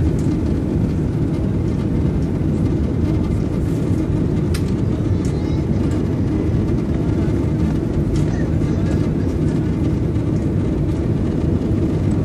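Airbus A380 cabin noise in flight: a steady low rumble of engines and airflow. One sharp click about four and a half seconds in.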